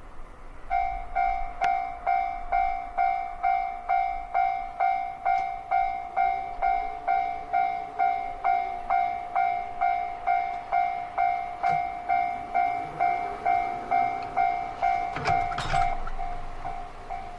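Japanese railway level-crossing warning bell starting up and ringing a steady two-tone "kan-kan" about twice a second. A train approaches and passes near the end, with a loud burst of wheel clatter under the bell.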